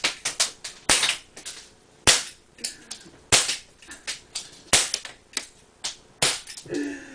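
Crosman 357 CO2 pellet revolvers firing: sharp pops about every second and a quarter, five loud ones, with many fainter clicks between them.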